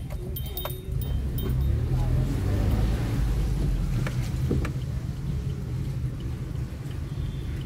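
Car driving on a wet road, heard from inside the cabin: a steady low rumble of engine and tyres, with a hiss that swells about two seconds in and eases off a couple of seconds later.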